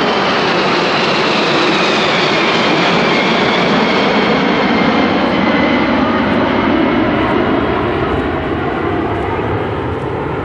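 A formation of five Kawasaki C-1 transports, each with twin Pratt & Whitney JT8D turbofans, flying past. A loud jet rumble carries a whine that falls in pitch as they go by, and the sound fades over the last few seconds as they draw away.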